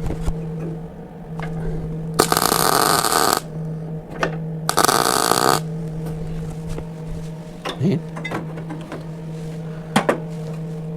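MIG welder laying two short welds into sheet steel, each a crackling hiss lasting about a second, the second starting a little over a second after the first ends.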